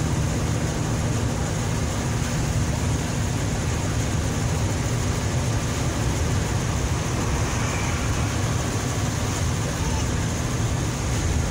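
Steady road and engine noise heard inside a moving car's cabin at highway speed, a low rumble with tyre hiss that holds an even level.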